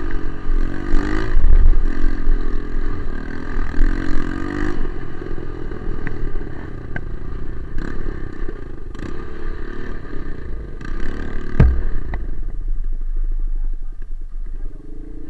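Single-cylinder four-stroke trail motorcycle engine running off-road, its revs rising and falling, with clattering knocks from the bike over rough ground. A loud knock comes a little before the end, after which the engine runs lower and steadier.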